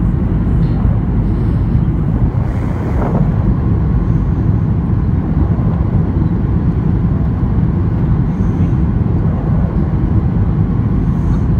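Steady low roar inside the cabin of a Boeing 737-800 on approach: engine and airflow noise with the landing gear down and flaps extended.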